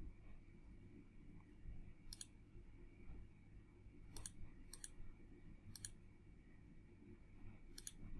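Five sharp computer mouse clicks, one to two seconds apart, over a faint low room hum.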